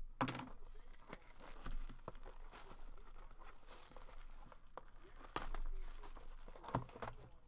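Trading-card packaging being torn open and crinkled by hand, with scattered light clicks and a louder stretch of rustling about five and a half seconds in.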